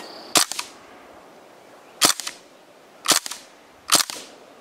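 Panther Arms DPMS CO2-powered BB rifle firing single shots in semi-auto mode: four sharp pops roughly a second apart.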